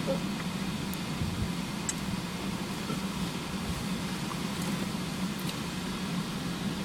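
Steady low mechanical hum with even background noise.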